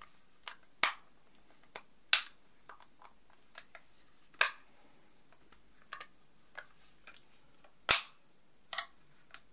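Sharp plastic clicks and snaps from an M19 earbuds charging case as its lid is pressed onto the refitted hinge pin and flipped open and shut, a handful of separate clicks a second or more apart, the loudest about eight seconds in.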